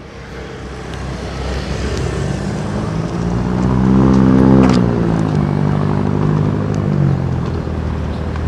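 A motor vehicle passes close by on the road. Its engine grows louder and its pitch rises to a peak about halfway through, then drops and fades as it goes past, over steady traffic noise.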